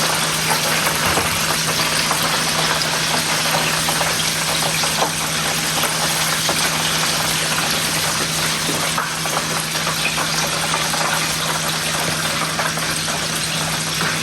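Chicken pieces deep-frying in hot oil: a steady sizzle with fine crackling throughout, over a steady low hum.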